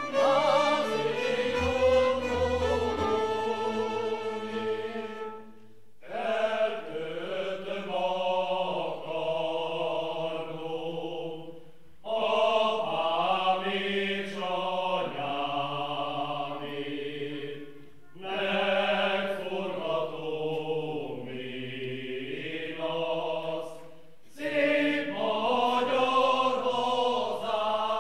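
Men's choir singing a slow Hungarian folk song, one melody line in long phrases of about six seconds, each followed by a brief breath pause.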